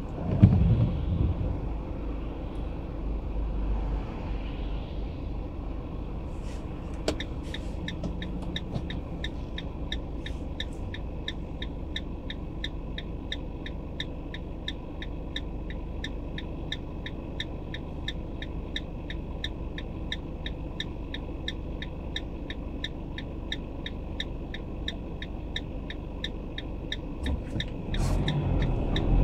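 A car's turn-signal indicator ticking steadily and evenly while the car stands at a light, over a low rumble from the stationary car and passing traffic. The ticking starts about a quarter of the way in. Near the end the engine and road rumble swell as the car moves off.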